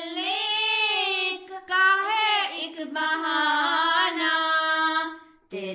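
A girl's voice singing an Urdu nazm without accompaniment, drawing out long held notes with a wavering pitch, with a short breath break near the end before the next phrase begins.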